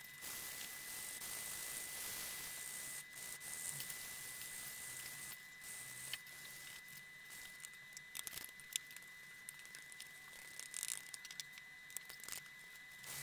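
Wet-and-dry abrasive paper scrubbing back and forth over a steel Sandvik 275 handsaw plate wet with mineral spirits, taking off rust and grime: an uneven hissing rasp that swells and drops with the strokes, with scattered light clicks.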